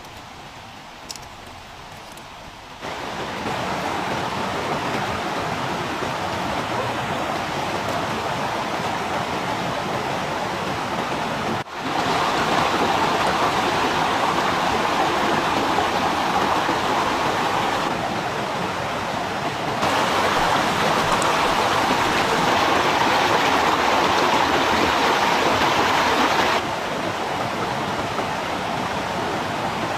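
Steady rushing noise without any tone, water-like, stepping abruptly louder and quieter several times.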